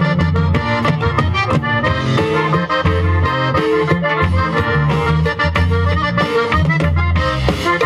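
Live band playing through a PA system, with an accordion leading the melody over acoustic guitar, electric bass and a drum kit. No singing.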